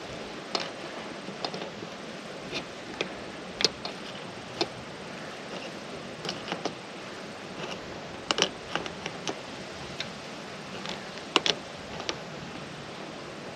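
Adjustable wrench tightening the bolt of a ground rod clamp on a copper ground wire: irregular small metallic clicks and ticks as the wrench is worked and reseated on the bolt, over a steady hiss.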